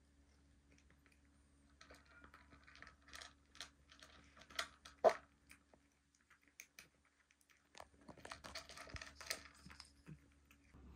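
Faint crackling and rustling with small clicks, in two spells, the louder click about five seconds in, over a faint steady hum.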